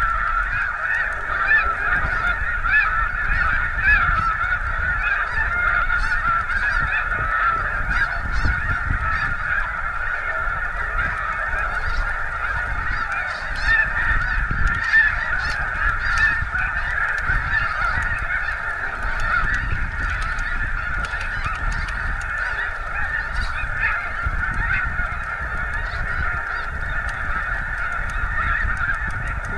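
A large flock of snow geese calling all at once, a continuous dense chorus of overlapping honks, with a low rumble underneath.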